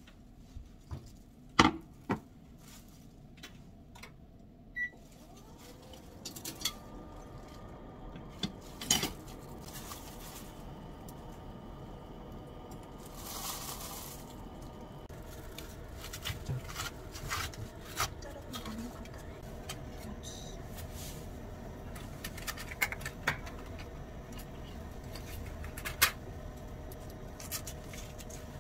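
Kitchen handling sounds: scattered clinks and knocks of a frying pan and metal steamer basket being set on an induction hob, the loudest about a second and a half in. From about six seconds in, the switched-on induction hob gives a steady electrical hum under them.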